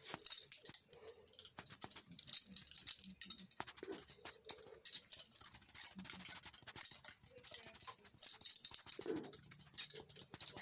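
Balisong trainer being flipped: rapid, irregular metallic clicks and rattles as the handles swing and clack together on their pivot pins.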